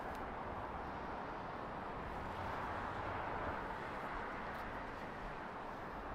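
Steady outdoor background noise: an even hiss with a faint low rumble, like distant city ambience.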